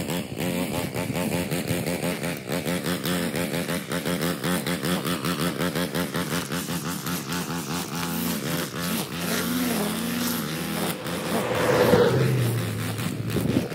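Gas string trimmer engine running under throttle while cutting grass, its pitch rising and falling as the throttle is worked. It is loudest about twelve seconds in, then eases to a lower note near the end.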